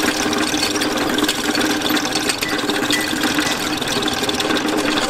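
Geared forge blower being worked by hand, a steady whir with a fast, even clatter of gears, blowing air into the coal fire to bring it up to heat.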